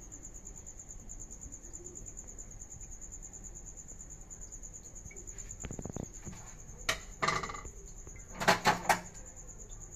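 A few clinks and knocks of kitchen dishes, the loudest a quick cluster near the end, over a steady high-pitched pulsing tone.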